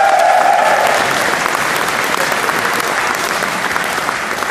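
Audience applauding, dense clapping that slowly thins out, with one held, voice-like cheer over it for about the first second.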